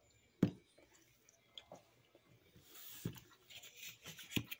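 A person chewing a pizza roll, with a few sharp mouth clicks: the loudest about half a second in, and others around three seconds and near the end.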